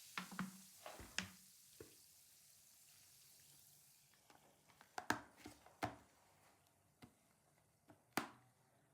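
Scattered sharp knocks and taps of kitchen food preparation, coming irregularly in small clusters, the loudest about five and eight seconds in.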